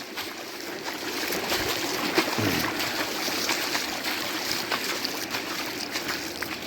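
Flash-flood water flowing across a dirt road, a steady rush of moving water with scattered small splashes.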